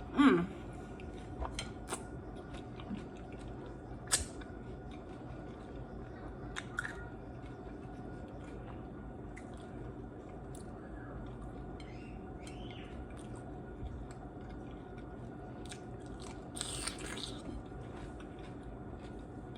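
A person chewing a crunchy beef tostada and taco, with scattered sharp crunches and mouth clicks, the loudest about four seconds in, over a steady low hum.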